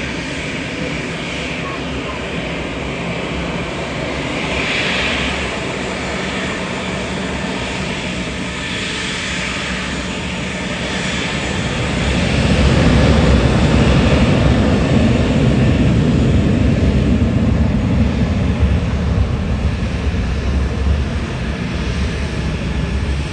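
Jet engines of a Boeing 737 freighter running up for takeoff. A steady jet hiss comes first, then a deep rumble builds about halfway through and holds as takeoff power comes on.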